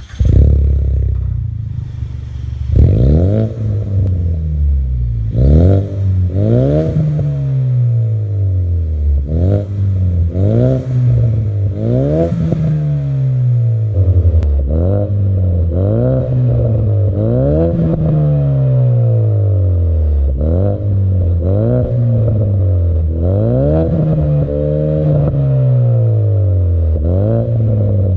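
Ford Mustang's 2.3 EcoBoost turbocharged four-cylinder starting up through an aftermarket turboback exhaust with quad tips. It settles briefly, then is revved over and over, each rev rising quickly and falling back, every second or two.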